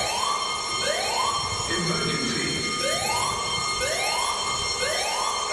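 Building fire alarm evacuation tone, the Australian-standard rising 'whoop' sweeping up in pitch and repeated in groups of three with a short pause between groups.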